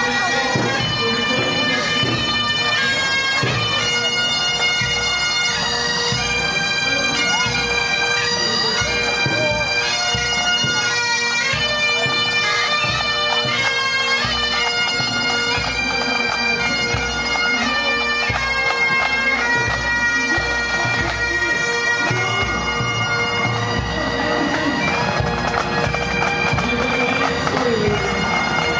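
Bagpipes playing a tune, the melody stepping from note to note over a steady drone.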